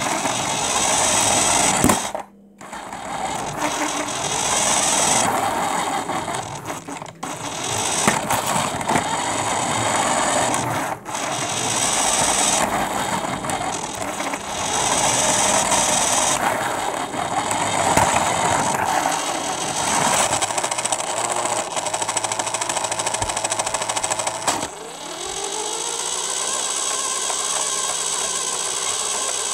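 An RC car's motor and drivetrain running as the car drives, the whir rising and falling with the throttle. It cuts out briefly a few times, and near the end settles into a steadier whir with a rising tone.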